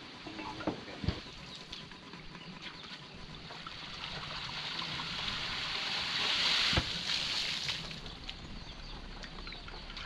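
Water gushing and splashing out of a hydraulic ram pump's waste valves during a test run, the rush building to its loudest about six and a half seconds in and then easing. Two sharp knocks are heard, one about a second in and one near seven seconds.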